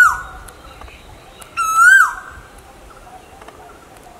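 Asian koel calling twice. The end of one note is heard right at the start, and a full note comes about a second and a half in. Each note is held, lifts slightly, then drops sharply.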